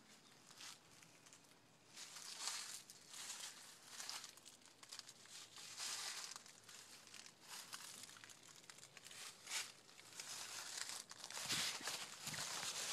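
Irregular rustling and crunching bursts, as of someone moving on foot through dry leaves and brush.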